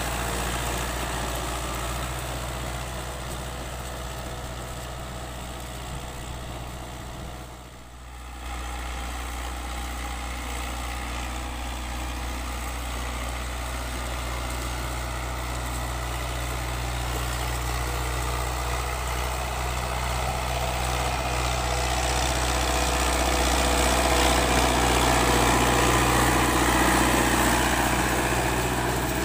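New Holland Dabung 85 tractor's diesel engine running steadily under load, pulling an 18-disc harrow. The sound dips briefly about a quarter of the way in, then grows louder as the tractor comes close, peaking near the end.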